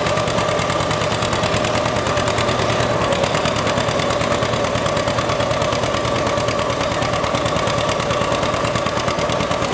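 Vintage John Deere two-cylinder tractor engine running under load with a rapid, even popping exhaust while pulling a concrete-block sled. A steady high whine runs alongside.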